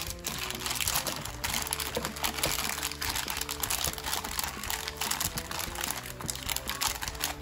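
Clear plastic bag crinkling and rustling as it is handled and cut open with a folding knife, over steady background music.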